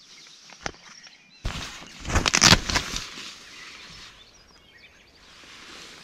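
Tent door zip being pulled open with a rough rasp, along with the rustle of the tent's nylon fabric, loudest between about one and a half and three seconds in.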